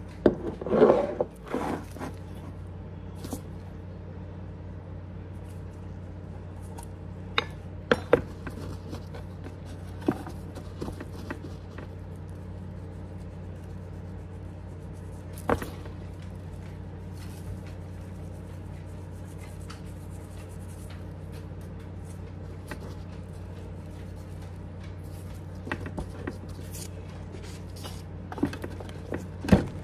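Food-prep handling sounds at a wooden kitchen counter: scattered knocks, clicks and rubbing, with a louder clatter about a second in, over a steady low hum.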